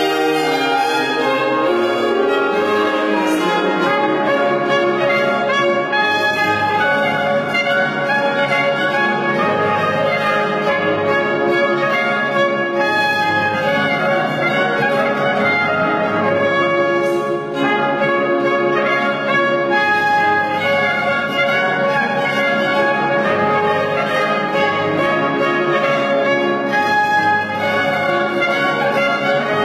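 Small ensemble of trumpets, trombone and bowed strings playing classical music together, the brass prominent over the strings.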